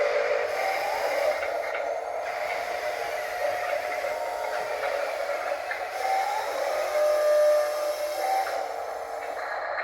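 Whine of the small electric motors and gearboxes of radio-controlled construction models at work, running steadily with short changes in pitch, one rising about six seconds in.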